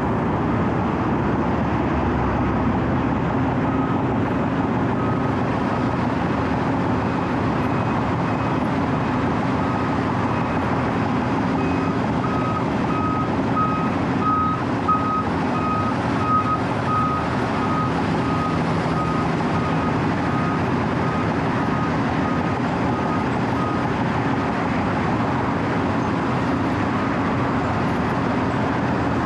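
Diesel engine of a Wirtgen W 120 CFi cold milling machine running steadily. A reversing alarm on nearby equipment beeps about one and a half times a second from about four seconds in, grows louder midway, and fades out about twenty-four seconds in.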